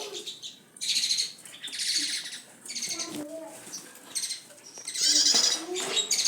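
Caged songbird chirping and warbling in short high bursts about once a second, loudest about five seconds in.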